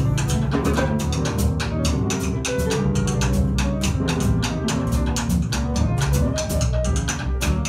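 A small jazz group playing live: busy drum-kit work with rapid cymbal and drum strokes several times a second over low double bass notes, with other pitched notes moving above.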